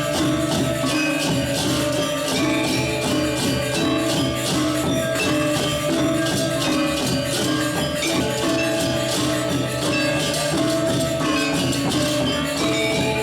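Balinese gamelan playing a dense, steady piece: ringing metal tones under a busy, fast high metallic jingling.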